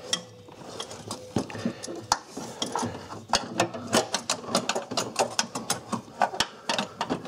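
Irregular metallic clicks and taps, several a second, as a steel clutch line is worked by hand through a car's engine bay, knocking and catching against the parts around it.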